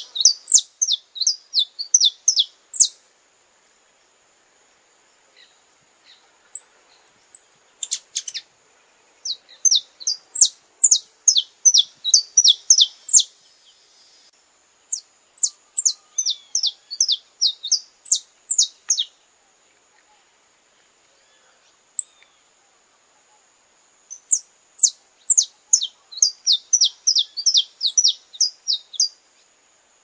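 Saffron finch singing: phrases of quick, sharp, downward-sweeping notes, about four or five a second. There are four bursts of song, each a few seconds long, with pauses between them and a few stray notes in the first long pause.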